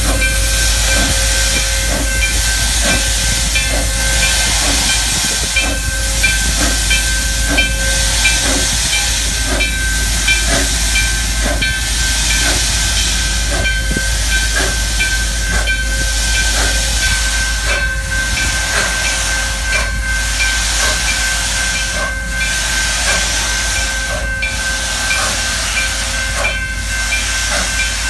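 Steady steam hissing from Grand Canyon Railway's 2-8-2 Mikado steam locomotive 4960 as it moves slowly in reverse, steam venting low at its cylinders. A steady high tone and a rapid, regular ticking run beneath the hiss.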